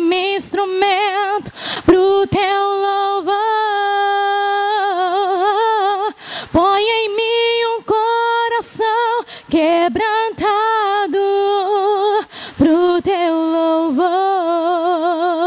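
A woman singing a Portuguese gospel worship song a cappella, with no accompaniment, holding long notes with vibrato between short breaths.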